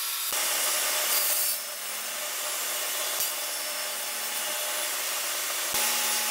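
DeWalt jobsite table saw running and cutting through white laminate-faced board, a steady whine and hiss of blade in wood. The sound changes abruptly a few times as short clips of the cuts follow one another.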